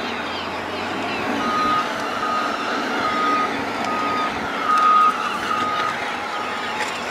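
Reversing alarm on heavy landfill machinery, a single-pitch beep repeating about three times every two seconds. It starts about a second and a half in, over a steady background of machinery noise.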